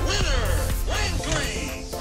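Background music, with tones that rise and fall in pitch.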